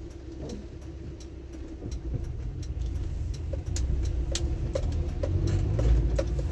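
A car's engine and tyres on a wet road, heard inside the cabin, growing louder as the car picks up speed. Rain taps on the windshield and roof in irregular sharp ticks.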